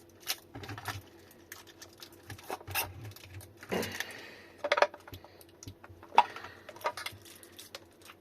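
Scattered clicks, taps and short scrapes of hard plastic and metal as a battery pack's cell block is worked loose from its plastic case, with a few louder knocks and rattles.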